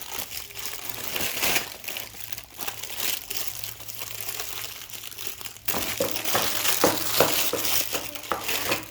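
Plastic packaging crinkling and rustling as it is handled and opened, with rapid small crackles; it gets louder and busier about two-thirds of the way through.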